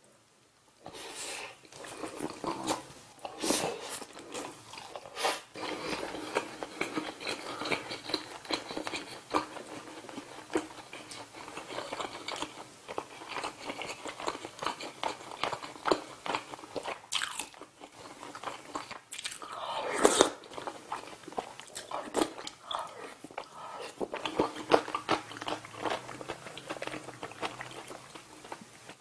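Close-miked chewing of grilled saury with rice and soft tofu stew: a continuous run of quick wet mouth clicks and smacks that begins about a second in, with one louder smack about two-thirds of the way through.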